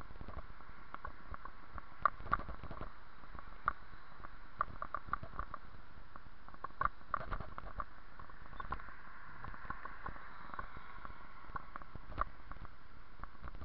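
A bicycle rolling over pavement, with irregular rattling clicks and knocks as it jolts over bumps and cracks, over a steady hiss.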